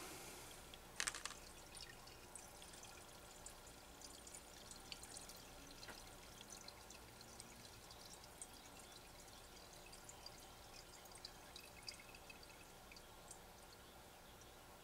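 Faint trickle of two-stroke mixed fuel being poured out of a chainsaw's oil tank through a plastic funnel into a jug, with one light knock about a second in.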